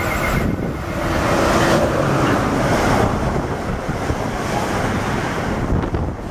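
Amtrak passenger train of stainless-steel Amfleet coaches running through a station at speed: a loud, steady rush of air and wheels on rail, strongest in the first few seconds, with wind buffeting the microphone.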